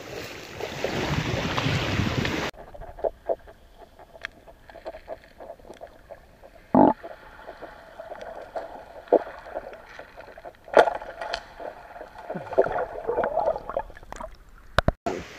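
Wind and shallow seawater sloshing on the microphone, then a sudden change to an underwater recording: muffled water with scattered sharp clicks and knocks, a couple of louder thuds and a faint steady hum.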